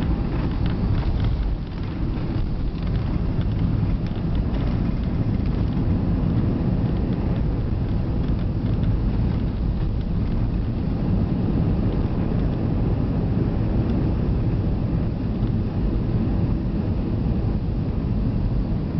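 Steady loud low rumble inside an Airbus A320 cabin during the landing rollout: the airliner's engines and wheels on the runway, heard through the fuselage. There is a brief dip about a second and a half in.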